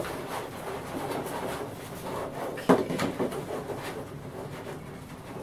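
Stacked black plastic plant-pot trays being lifted and set down by hand: plastic scraping and light knocks, with one sharper knock near the middle.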